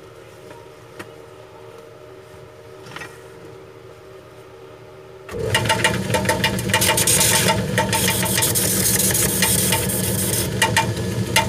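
Cobbler's grinding machine grinding a sandal's wedge sole: a low steady hum at first, then about halfway through a sudden loud, steady grinding full of rapid scraping clicks as the sole is pressed against the wheel.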